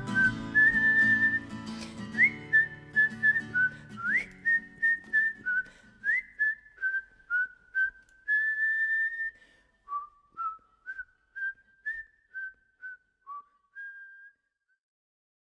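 Whistling of a song's melody over instrumental backing that fades out about five seconds in. The whistled tune carries on alone in short notes, some scooping up in pitch, and stops abruptly near the end.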